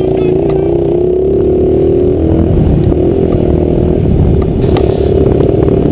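A 65cc dirt bike's two-stroke engine running hard at high revs, heard from the rider's helmet. The pitch holds high and wavers slightly as the throttle is worked on the trail.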